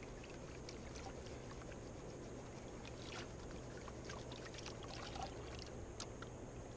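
Faint water swishing and pouring as a plastic gold pan is dipped and worked in the river shallows, with a few light clicks, over a steady low hiss.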